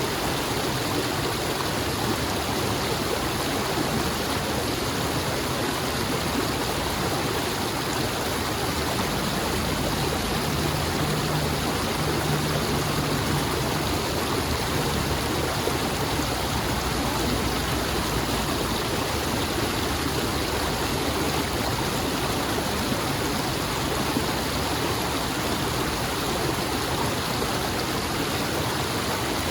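Stream of water rushing and burbling steadily, a continuous even wash of sound.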